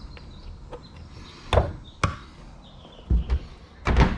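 Several knocks and thumps of oil tins and caps being handled on a towel-covered counter: a sharp knock about one and a half seconds in, another at two seconds, a close pair a little after three seconds and the loudest cluster near the end.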